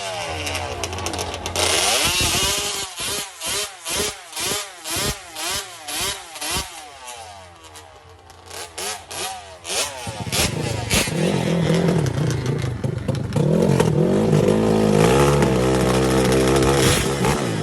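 Sport ATV engines in a drag run: revving hard with a quick series of rising pitch sweeps as they shift up through the gears, fading away, then an engine running steadily and louder from about ten seconds in.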